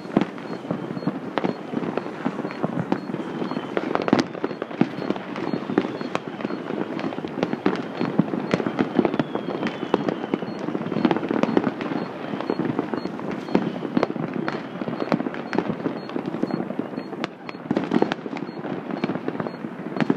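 Many fireworks going off at once: a dense, continuous crackle of bangs with louder single blasts scattered throughout.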